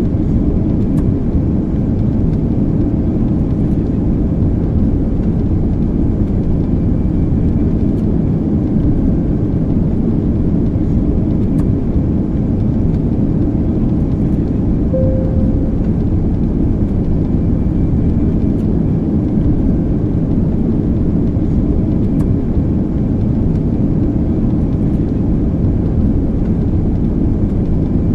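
Airplane in flight: a steady, unbroken drone of engine and rushing air, heaviest in the low range. A brief faint tone sounds about halfway through.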